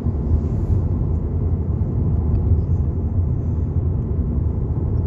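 A car driving at road speed, heard from inside the cabin: a steady low rumble of road and engine noise.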